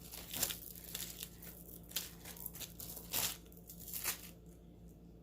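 Packaging crinkling and tearing as it is handled and opened, in irregular scrunches that stop a little past four seconds in.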